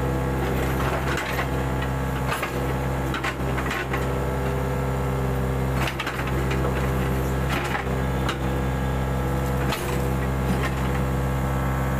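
Mini excavator's diesel engine running steadily, with scattered knocks and clanks from the machine working.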